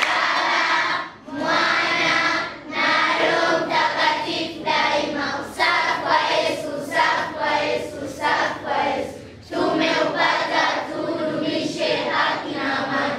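A group of children singing together, in phrases with brief pauses between them.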